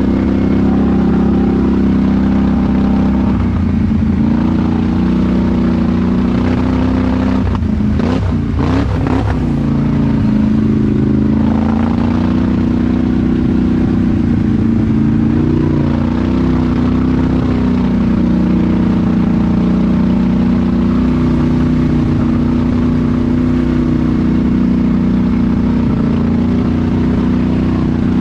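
Polaris Sportsman High Lifter ATV's engine running while riding, its note rising and falling with the throttle. About eight seconds in, a brief cluster of knocks and rattles as the pitch swings up and down.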